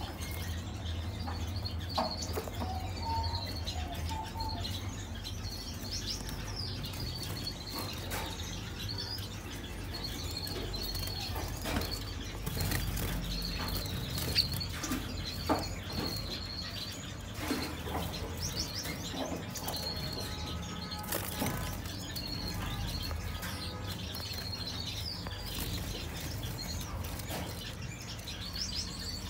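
Small cage birds in an aviary chirping over and over in short high calls, with wings fluttering and occasional small clicks. A low steady hum runs underneath.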